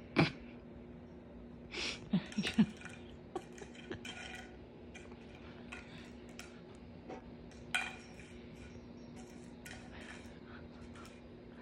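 A cat batting a drinking straw across a hardwood floor: scattered light taps and clatters, with a quick cluster about two seconds in and another sharp tap near eight seconds.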